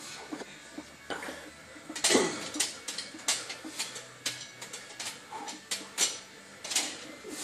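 Metal clanks and rattles of a loaded barbell and plates in a squat rack during a heavy back squat, with a short grunt that falls in pitch about two seconds in.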